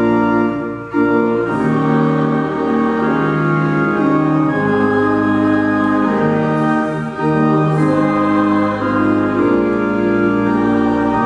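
Church organ playing sustained chords that change every second or two, with the congregation and clergy singing along.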